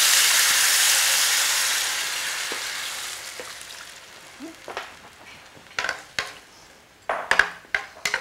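Chicken broth poured into a hot oiled skillet over baby potatoes, sizzling loudly and dying away over a few seconds as the liquid cools the pan. Then a spatula knocks and scrapes against the pan several times.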